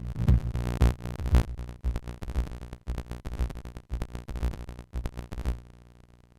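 Moog DFAM analog percussion synthesizer playing a sequenced pattern of pitched, percussive hits over a sustained tone. It stops about five and a half seconds in and fades out.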